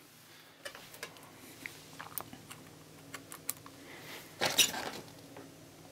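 Quiet hands-on workshop handling noises: scattered light clicks and taps, and a short scraping rustle about four and a half seconds in. No drill or screw gun is heard running.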